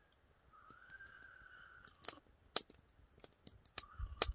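A person slurping hot coffee from a metal camp mug: one drawn-out sip lasting about a second and a half, followed by scattered small clicks and lip sounds, with a low bump near the end.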